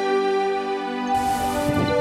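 Background music of soft, sustained tones. About a second in, a rustling hiss joins underneath it.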